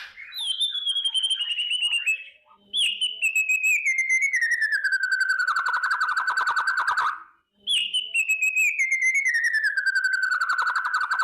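White-rumped shama (murai batu) giving its crackling 'kretekan' call: a fast rattle over a pitch that slides down from high to middle. It comes in three phrases, a short one first and then two longer ones of several seconds each, with brief pauses between them.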